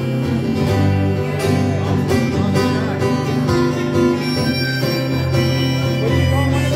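Live solo acoustic guitar strummed steadily in a folk rhythm, with sustained low bass notes under the chords.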